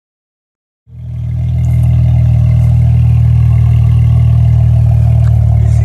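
2018 Dodge Challenger's engine idling: a deep, steady drone with a slight regular pulse, coming in about a second in and swelling to full level within a second.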